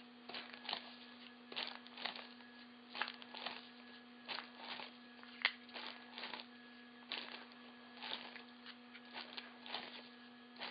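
Vibratory tumbler humming steadily, with irregular faint crackles and rustles from its crushed walnut shell polishing media.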